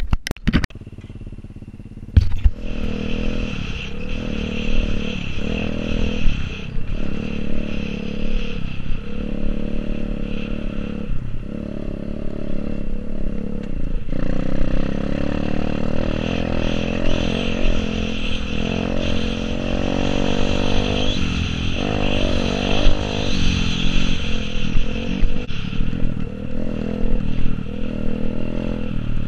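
Motorbike engine running as the bike is ridden over a dirt track, its pitch rising and falling with the throttle. It comes in after a sharp knock about two seconds in.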